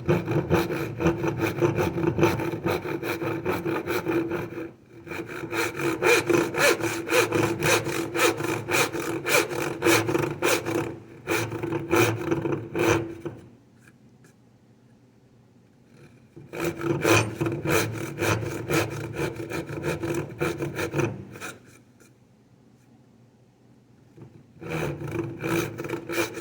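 Back saw cutting the waste side of a finger joint in wood with quick back-and-forth strokes. It comes in four bouts of sawing with short pauses between, the longest bout about eight seconds.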